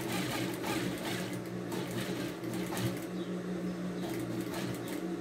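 Industrial straight-stitch sewing machine running steadily, stitching a seam around a curved fabric piece: a steady motor hum with faint ticking.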